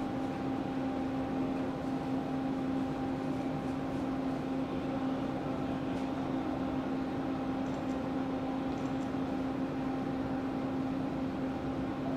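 Steady electrical hum with a constant low tone from a stationary JR West 287 series electric train standing at the platform, its onboard equipment running.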